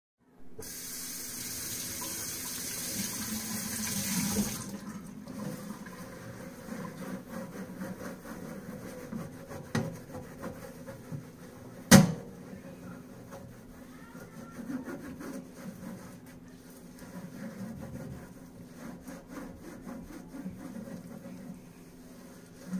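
Kitchen faucet running into a stainless steel sink for about four seconds, then turned off. After that, a netted dish cloth scrubs a greasy metal baking sheet in water, with a faint knock about ten seconds in and a sharp, louder knock about twelve seconds in.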